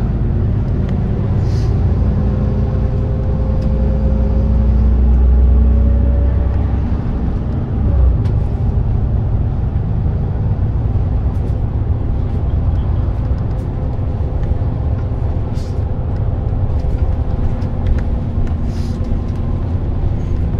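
Onboard running sound of a 2018 Mitsubishi Fuso Aerostar city bus (2PG-MP38FK) under way: a steady low engine and road rumble. The engine note climbs over the first several seconds and eases off about seven seconds in, with a short knock just after.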